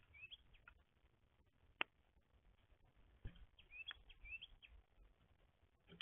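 Faint chirps from small backyard songbirds: short, quick rising notes, heard in pairs near the start and again about four seconds in, with a few sharp clicks, the loudest a little under two seconds in.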